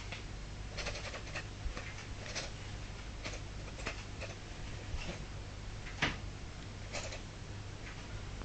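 Maine Coon cat making short, irregularly spaced chirping sounds at a bird it is watching, about nine in all, the loudest about six seconds in.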